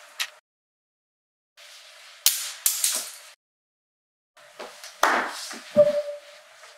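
A few sharp clicks and knocks in three short bursts, with stretches of dead silence between them; the last knock is followed by a brief steady tone.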